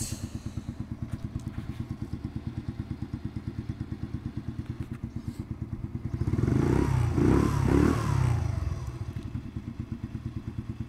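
Junak 901 motorcycle engine idling with an even, steady exhaust pulse, then blipped three times in quick succession about six to nine seconds in before dropping back to idle.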